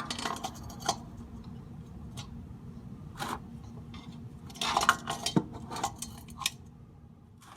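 Scattered metallic clinks and short clatters of tools and parts being handled while working under a car, over a steady low hum.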